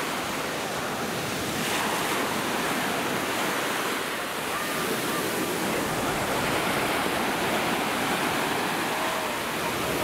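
Mediterranean surf: small waves breaking and washing up a sandy beach, a steady rush of surf that swells a little now and then.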